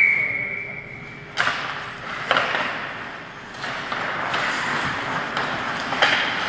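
A single steady whistle blast lasting about a second and a half, then ice hockey play: sharp clacks of sticks and puck about a second and a half in, again a second later and again near the end, over the scraping of skates on the ice.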